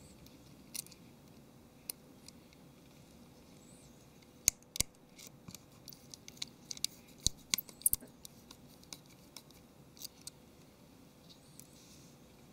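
Small Phillips screwdriver clicking and scraping against tiny silver screws and the metal headphone-jack bracket of a Nexus 7 tablet as the screws are driven in. Scattered sharp little clicks, thickest in a quick run in the middle, with two more a couple of seconds later.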